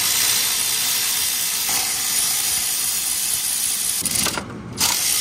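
Power ratchet running to back out the water pump bolts on a Ford 5.4 3V V8, heard as a loud steady hiss with a few short knocks and a brief stop about four seconds in.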